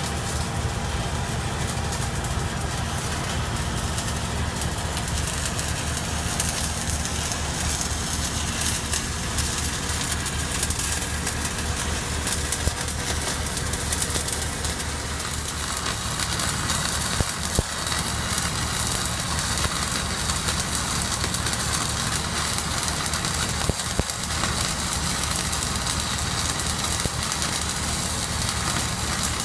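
An engine running steadily at idle speed, with the fine crackle of shielded metal arc (stick) welding arcs on steel pipe over it.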